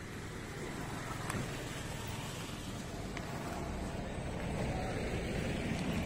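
A car going by on the dirt road: a steady rush of engine and tyre noise that grows slowly louder toward the end.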